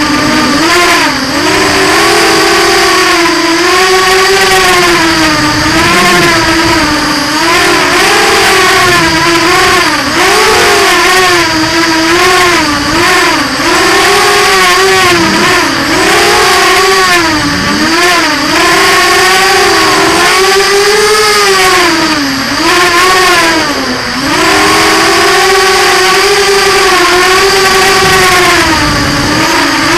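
Racing quadcopter's brushless motors (Emax MT2204 II) and 5045 bullnose props whining in flight, the pitch rising and falling constantly as the throttle changes. A steady high-pitched tone runs under it.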